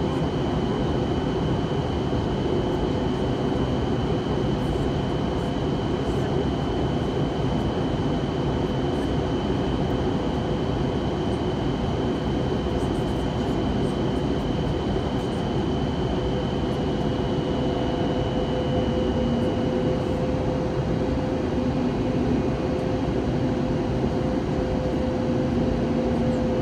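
Steady cabin noise inside an Airbus A320neo in flight: a loud, even rush of air and engine hum, with a thin high whine that stops about 20 seconds in.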